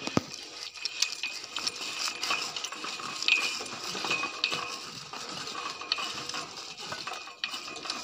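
A chain pipe wrench turning the steel boring pipe of a hand-drilled water well: a continual run of light metallic clinks and rattles from the chain and the pipe fittings, the loudest a little past three seconds in.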